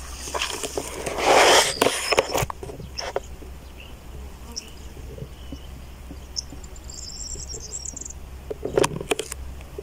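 Outdoor field ambience with a steady low rumble, a loud rush of noise about a second in, and scattered sharp clicks and ticks. A short high chirping trill comes just past the middle, and a cluster of clicks comes near the end.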